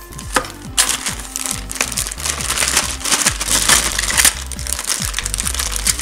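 Clear plastic bags crinkling and crackling as they are handled, in a run of quick rustles, over background music.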